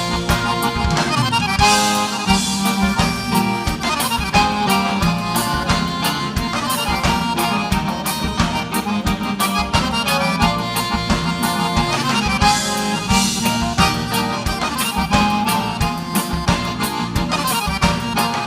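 Live gaúcho vaneira dance music in an instrumental break: button accordion (gaita) playing the lead melody over a steady beat.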